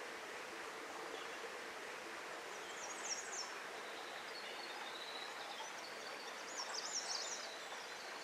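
Small forest trout stream flowing with a steady hiss, with a bird's short high chirping calls about three seconds in and again around seven seconds.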